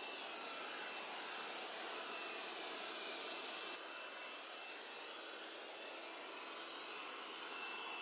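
Cuckoo robot vacuum cleaner running: the steady hiss of its suction fan, with a faint high whine over it.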